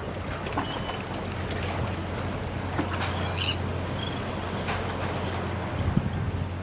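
Steady low drone of a boat engine with wind on the microphone, and a few short bird chirps over it.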